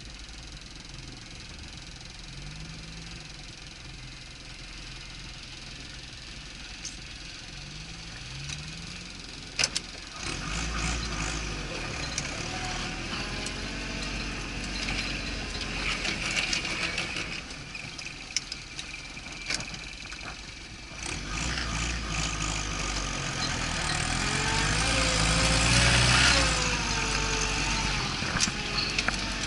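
Off-road vehicle engine running as it is driven: quieter for the first third, then a few sharp knocks and the engine getting louder, its pitch rising and falling with the throttle, loudest with a rushing noise about 25 seconds in.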